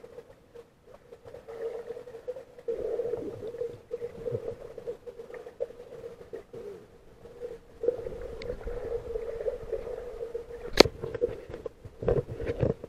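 Muffled underwater sound picked up by a submerged camera: a steady low hum with shifting rumble, and two sharp knocks near the end.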